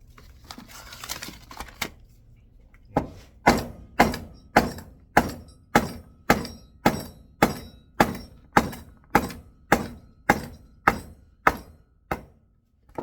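Rubber mallet striking a coilover part in a steady run of about seventeen blows, about two a second, to knock out a piece whose snap ring has been removed; each blow leaves a faint metallic ring. A little handling noise comes before the blows.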